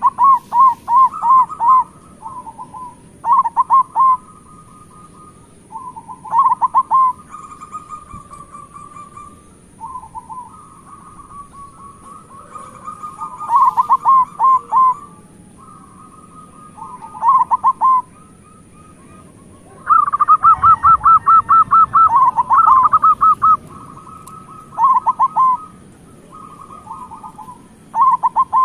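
Zebra doves (perkutut) cooing. Every few seconds comes a phrase: a held note, then a quick run of short rolling coos. About two-thirds of the way in, two birds call over each other.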